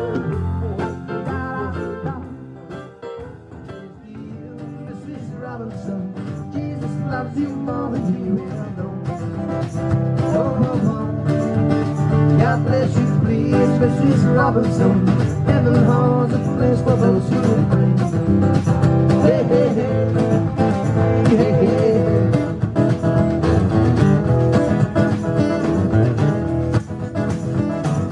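Live acoustic rock band playing: strummed acoustic guitars with a drum kit. The music thins out about three seconds in, then builds back up, with a steady drum beat from about eight seconds on.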